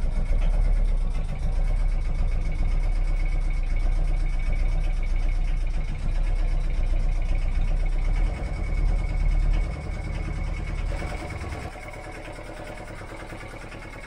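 Sailboat's inboard engine idling steadily, with a thin steady whine above the low running note; its alternator is charging the batteries. Near the end the sound drops to a quieter level.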